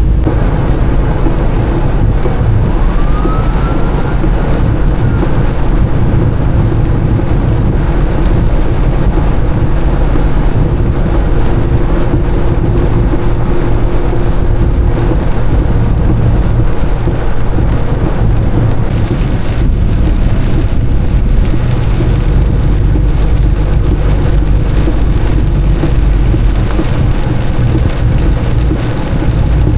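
Semi truck driving in the rain, heard from inside the cab: a steady, loud low drone of engine and tyres on wet road, with the hiss of rain and spray.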